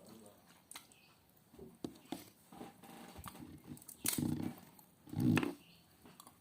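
Close-miked eating: chewing with scattered sharp clicks of a spoon on the plate and crunches, and two louder, short low mouth sounds about four and five seconds in.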